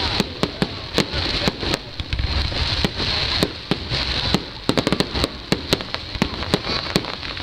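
Aerial fireworks bursting overhead in a rapid, irregular string of bangs and pops, several a second, over a steady crackling hiss.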